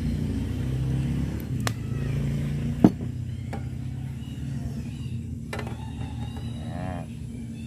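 A motor vehicle engine runs steadily, its low hum fading slightly. Over it come a few sharp clanks of a frying pan against a portable gas stove's grate, the loudest about three seconds in, as the pan is lifted off the burner and set back.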